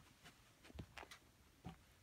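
Very quiet soft taps and rustles, a few in the second second, from two-week-old Border Collie puppies moving about and mouthing a fleece toy on a blanket.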